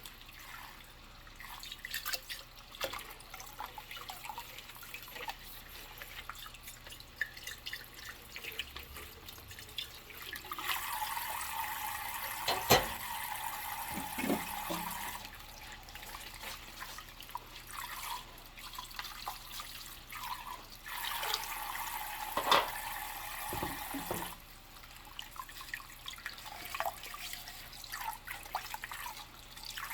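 Dishes being washed by hand in a sink with rubber gloves: small clinks, scrapes and drips throughout. Twice the tap runs for a few seconds, and each time a dish knocks sharply against the sink or another dish.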